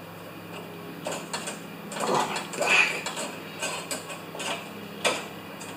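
Light clicks, scrapes and rattles of small parts being handled on the tipped-up snow thrower during carburetor removal, loudest about two to three seconds in, over a faint steady low hum.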